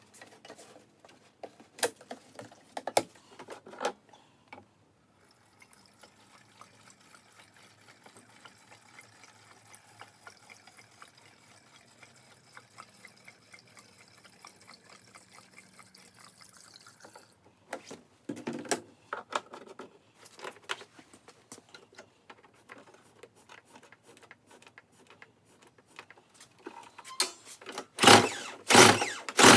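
Fresh fuel being poured into a Toro CCR1000 snowblower, with scattered handling clicks. Near the end come several loud, quick recoil-starter pulls on its Tecumseh engine, which does not catch and run.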